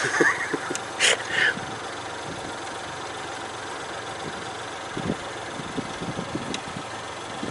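Car engine idling steadily, with a short louder noise about a second in and a few light knocks around five to six seconds in.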